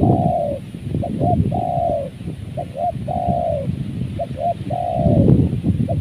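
Spotted dove cooing its repeated call, about four times: two short notes and then a longer falling coo, every second and a half or so. Gusts of wind buffet the microphone underneath, heaviest near the start and near the end.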